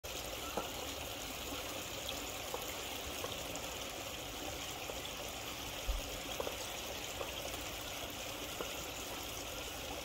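Steady hiss of running water, like a trickling stream, with a few faint clicks and a soft low thump about six seconds in.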